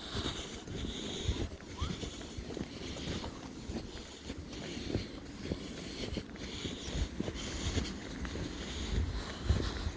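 Footsteps crunching through deep snow in a steady walking rhythm, with wind rumbling on the microphone.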